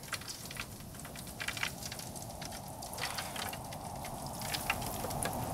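Scattered light crackles and clicks from a pan of hot frying oil and the wood fire of a clay stove as the aluminium pan is lifted off the fire.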